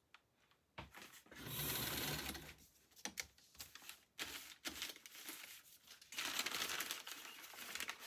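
Electric sewing machine stitching fabric onto paper, running in two bursts: about a second starting near one and a half seconds in, then again from about six seconds in, with small clicks and handling rustles between.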